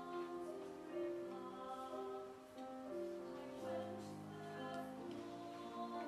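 Mixed choir singing slow, held notes in several-part harmony.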